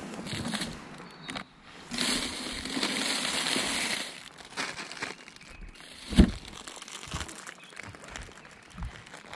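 Plastic wrapper of a packaged bread roll crinkling as it is taken out of a cooler box, with one sharp thump about six seconds in.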